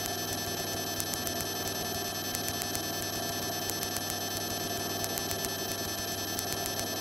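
Electronic interference on the cockpit audio feed, with the aircraft noise dropped out: a steady buzzing hum of several tones with a fast ticking pattern repeating about four times a second.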